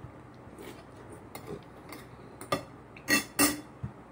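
Close mouth sounds of a person eating: soft clicks and smacks while chewing, scattered through, with two louder short smacks a little after three seconds in.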